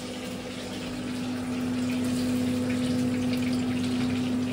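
Water running, growing a little louder over the first two seconds, over a steady low hum.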